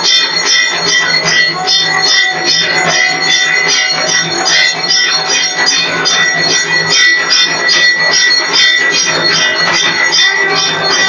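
Arati bells and cymbals clanging in a fast, even rhythm, with a high bell tone ringing steadily under the strokes.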